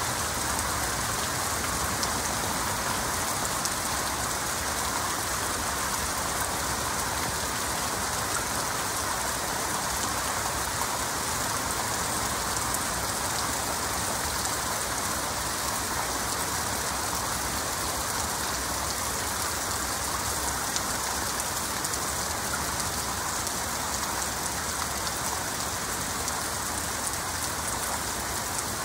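Heavy rain falling steadily: an even, unbroken hiss of many drops, with no thunder in this stretch.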